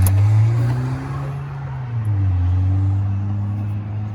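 A motor vehicle's engine running close by, its low hum drifting up and down in pitch. A single sharp click comes right at the start.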